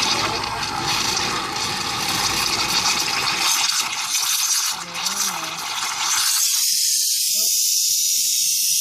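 Krups espresso machine's steam wand frothing milk: a steady, loud hissing and gurgling. About six seconds in it changes to a thinner, high-pitched steady hiss.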